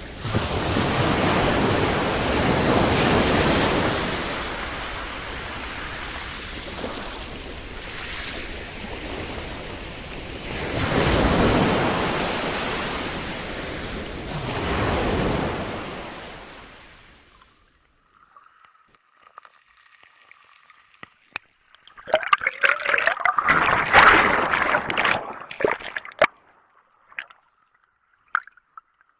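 Sea waves breaking on the shore, the rush of surf swelling and drawing back three times. About two-thirds through it gives way to a much quieter passage of scattered clicks and a faint thin steady tone, with a loud burst of crackling near the end.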